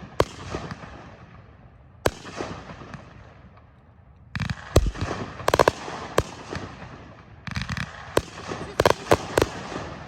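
Consumer aerial fireworks going off: two single sharp bangs early on, then dense volleys of reports with crackling tails from about four seconds in and again near the end.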